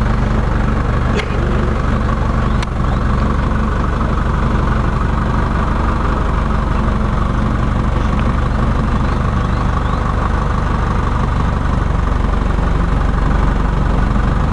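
Truck engine running steadily, heard from inside its tarpaulin-covered cargo bed as a low drone. Two short sharp knocks come in the first three seconds.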